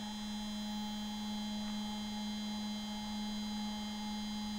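Stepper motor driving a linear stage at a slow, constant jog feed, giving a steady hum with fainter higher tones above it.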